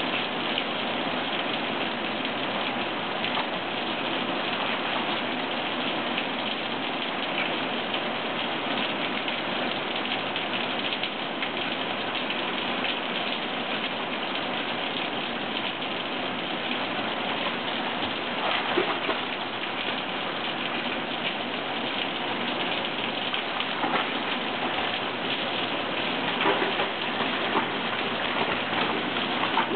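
Steady rain falling on a swimming pool, a constant even hiss, with a few brief sharp sounds over it in the second half.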